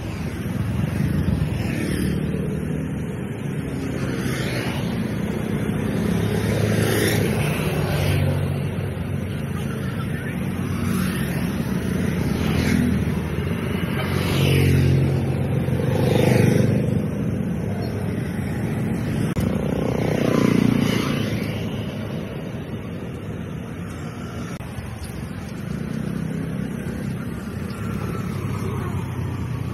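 Street traffic: cars and motorbikes passing one after another, each engine rising and fading, over a steady roadside din.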